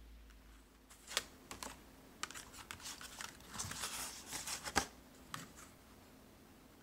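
Glossy photo prints and a magazine being shuffled and slid over one another by hand: a run of light paper clicks and rustles, thickest in the middle, with the sharpest snap about two-thirds of the way in.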